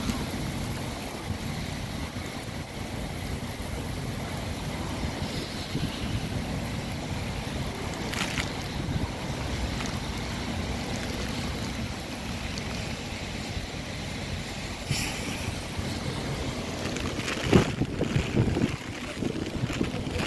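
Heavy rain falling in a squall, with gusty wind buffeting the microphone; a steady hiss under rumbling gusts that grow louder near the end, with a few short knocks.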